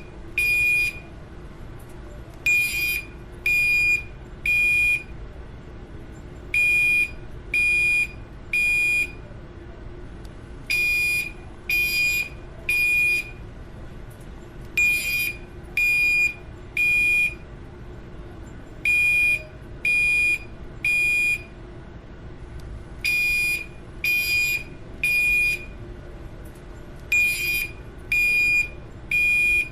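Building fire alarm sounding high-pitched electronic beeps in groups of three, about one a second, with a short pause between groups: the temporal-three evacuation signal. A steady low hum runs underneath.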